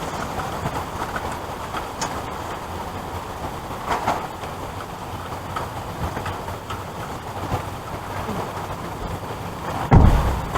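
Heavy rain pouring down in a steady hiss, with a few light knocks of items being handled and a loud low thud near the end.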